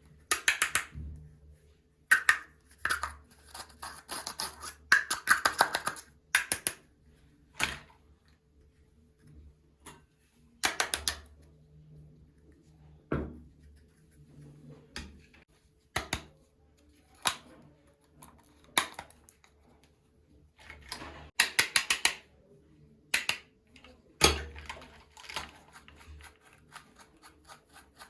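Small plastic toy kitchen pieces and their packaging being handled: irregular clicks, taps and crackly rustles with short pauses between them, the longest crinkly stretches about 4 to 6 seconds in and again near 21 to 22 seconds.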